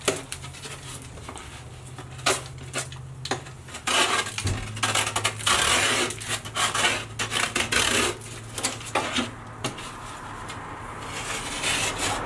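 Utility knife blade shaving and scraping the cut gypsum edge of a drywall piece to trim it: a run of short, sharp scraping strokes with crumbling and light knocks of the board, busiest in the middle.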